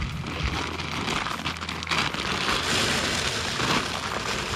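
Dry shelled corn poured from a feed bag into the top of a rock-style deer feeder: a steady, dense pattering rush of kernels.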